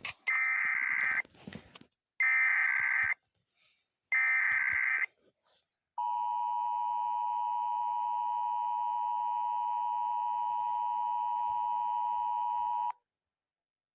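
Emergency Alert System broadcast tones: three screeching bursts of SAME header data, each about a second long. Then the steady two-tone attention signal holds for about seven seconds and cuts off suddenly.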